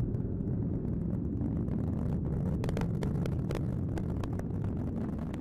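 Atlas V rocket's RD-180 booster engine heard from the ground during ascent: a steady deep rumble with scattered sharp crackles, thickest through the middle.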